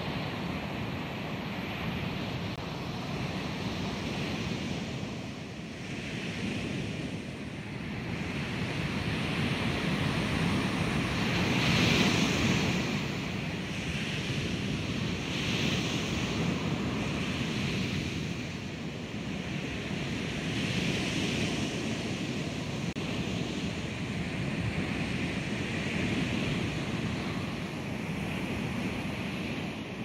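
Sampled ocean waves crashing, many overlapping into a continuous surf wash that swells and eases every few seconds, loudest about twelve seconds in. Each wave sample is placed at its own spot in the stereo/3D field.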